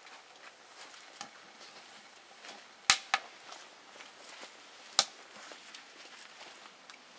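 Fire in a freshly lit Frontier wood-burning camping stove, giving sharp cracks and light ticks: two loud cracks close together about three seconds in and another about five seconds in, with fainter crackling between.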